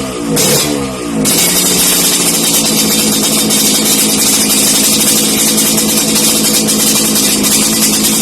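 Yamaha RX-King's 135 cc two-stroke single running through an aftermarket kolong (under-belly) exhaust, crisp-sounding. The throttle is blipped once, then the engine settles into a steady idle about a second in.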